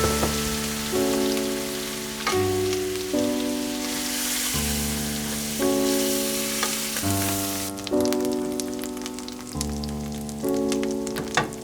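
Food sizzling and crackling in hot oil in a pan; the dense sizzle drops away about two-thirds through, leaving scattered crackles.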